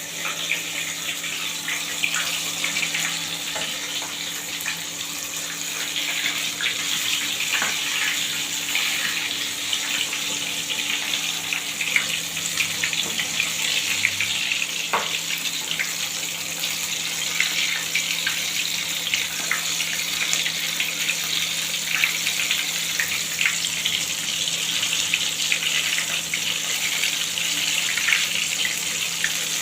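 Chicken pieces deep-frying in hot oil: a steady sizzle with scattered crackles and pops.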